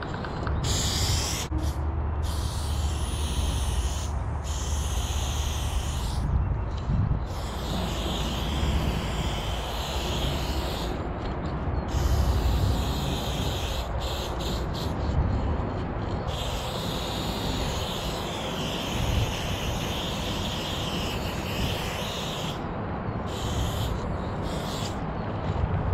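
Aerosol spray paint can hissing in long strokes, the hiss cutting off briefly between strokes many times over, with a low rumble running underneath.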